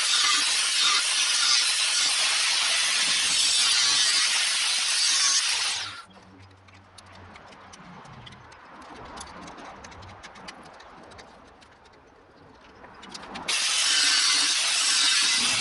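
Power tool cutting through the steel wall of a gas bottle with a loud, even hiss; it stops abruptly about six seconds in, leaving quiet handling clicks, and starts cutting again near the end.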